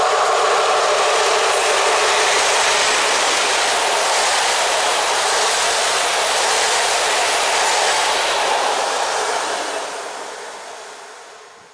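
Passenger train of Polregio coaches hauled by an EP07P electric locomotive running past close by, a steady rolling noise of wheels on the rails. The sound eases over the last few seconds and fades out at the end.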